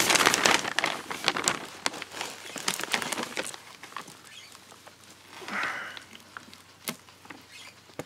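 Loose potting soil crackling and rustling as hands press and crumble it into a glass terrarium, with grains ticking on the glass. The crackle is dense for the first few seconds, then thins to scattered ticks.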